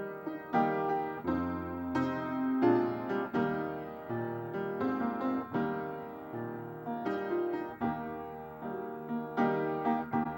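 Solo piano playing a slow piece in chords, each struck chord left to ring and die away before the next.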